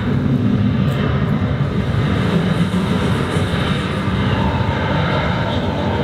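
Steady, loud rumbling roar from a TV drama's sound effects, playing through the television with no dialogue.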